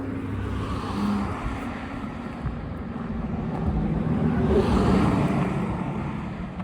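A road vehicle passing by, its tyre and engine noise building to a peak about five seconds in and then fading.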